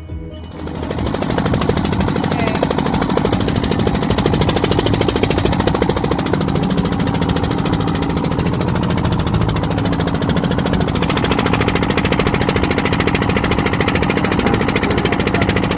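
Fishing boat engine running steadily with a rapid, even knocking beat, fading in over the first second or so.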